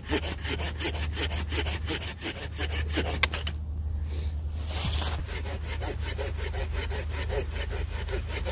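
Coarse-toothed hand saw cutting through a wooden branch in quick, even strokes, about five or six a second. The sawing breaks off for a moment about three and a half seconds in, then carries on.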